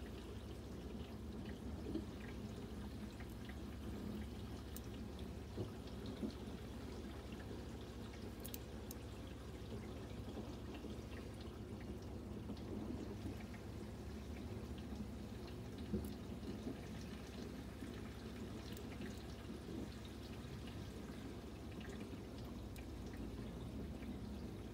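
Water trickling and dripping steadily in a fish tank over a low steady hum, with a few faint clicks.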